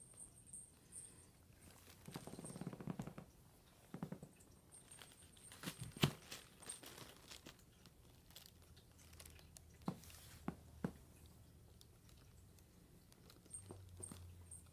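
Faint rustling and crinkling with scattered small clicks and taps as cats move about among toys on a carpeted floor. The softer crinkling is about two seconds in, and there is a sharper tick near the middle.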